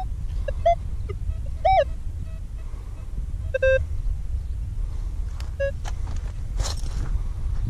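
Metal detector giving short target beeps as its search coil sweeps back and forth over a dug hole. The tones are brief and mid-pitched, and one about two seconds in wavers up and down. A steady low rumble runs underneath.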